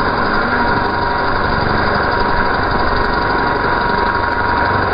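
Electric RC helicopter on a FlyWing Bell 206 V2 power frame hovering: motor and rotor blades running steadily with a constant high whine.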